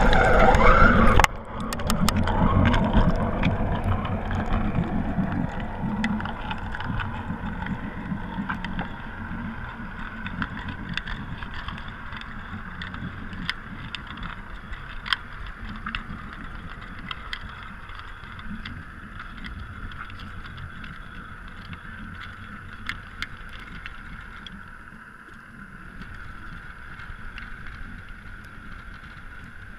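Underwater sound through a sinking action camera's waterproof housing: a loud splash and bubbling as it goes under, then a steady muffled rush of water as it drops. The rush slowly gets quieter, with scattered sharp clicks.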